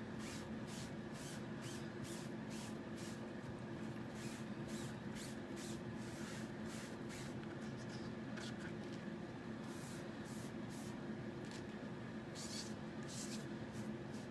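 A small round applicator rubbed in short strokes over a stencil transfer: a run of scratchy swishes, about three a second, with a pause a little past the middle before the strokes start again. A steady low hum sits underneath.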